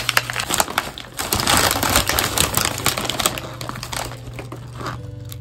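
Crinkly potato chip bag being handled and pulled open, a dense run of crackling that thins out near the end.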